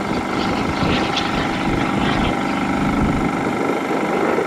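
Small kerosene-burning turbine engine of a radio-controlled model jet running, a steady sound with several held tones.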